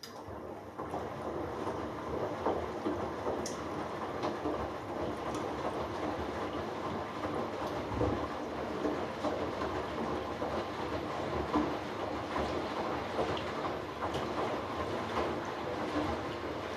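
Hoover Dynamic Next washing machine drum tumbling a load of dark clothes through the rinse water in the final rinse, with a steady sloshing churn that starts abruptly.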